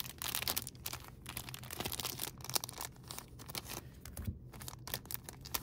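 Thin clear plastic card sleeves and bags crinkling and rustling with many irregular little crackles as trading cards in them are handled and shuffled.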